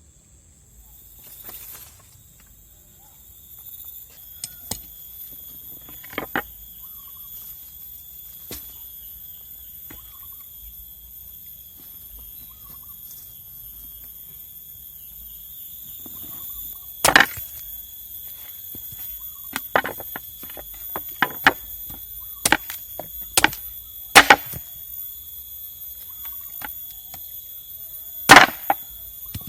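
Steady high-pitched insect drone in the forest, with sharp clicks scattered through it, most of them and the loudest in the second half.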